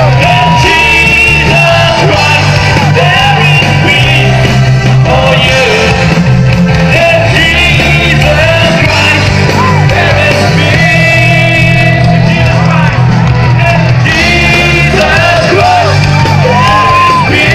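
Loud live band music with a lead voice singing over a heavy, steady bass line, and shouts from the crowd. It is loud enough to sound close to distorting.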